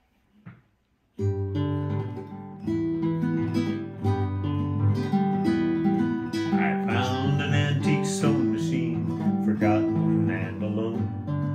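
Strummed acoustic guitar music starting about a second in, with a wavering melody line joining over it about halfway through.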